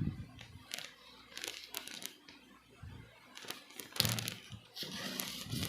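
Packaging crinkling and tearing as a shipping box is opened, in scattered short rustles and snaps that get busier in the second half.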